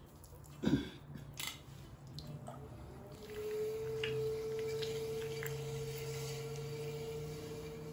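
Electric pottery wheel motor whining as it spins up: a single tone rises about two and a half seconds in, then holds steady over a low hum. A thump under a second in as the lump of wet clay is set down on the wheel head.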